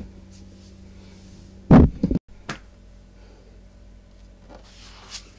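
A steady low electrical hum, with a heavy double thump about two seconds in and a fainter knock just after it.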